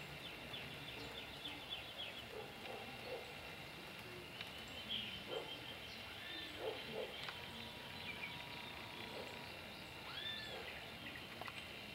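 Quiet wild-bird ambience: distant birds call, with a few short arched notes about halfway through and again near the end, over a faint steady high ringing. In the first couple of seconds a white-barred piculet taps at a thin ash twig, a run of faint quick ticks.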